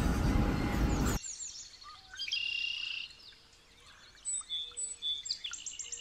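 A loud rushing noise cuts off abruptly about a second in. After it, small songbirds chirp and call: quick high falling chirps, short whistled notes and scattered tweets.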